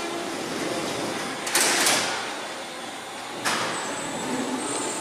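Berlin U-Bahn train standing at the platform with its sliding doors closing: a loud air hiss about a second and a half in, then a sharp knock about two seconds later, over the steady hum of the underground station.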